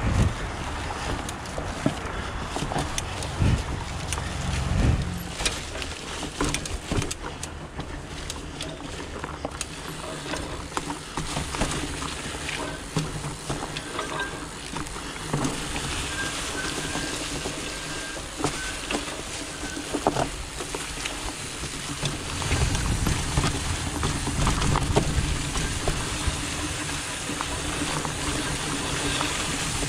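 Trek Farley fat bike being ridden on a trail, recorded by an onboard GoPro: a constant rush of tyre and air noise, scattered knocks and rattles from the bike over bumps, and a low rumble that gets heavier over the last several seconds.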